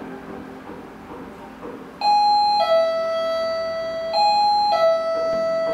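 Two-tone ding-dong chime sounding twice, each time a higher note followed by a lower one that rings on and fades.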